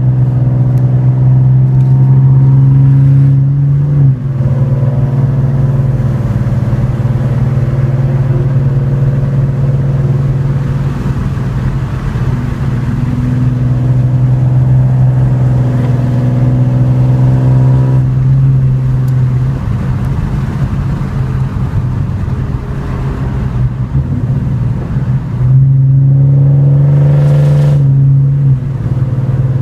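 A 2014 Ford Mustang's 3.7-litre V6, fitted with long-tube headers, an H-pipe and a muffler-delete exhaust, heard from inside the cabin while driving. The engine note pulls loud and steady, drops off suddenly about four seconds in, eases quieter for a stretch, then pulls loud again for a couple of seconds near the end before dropping away.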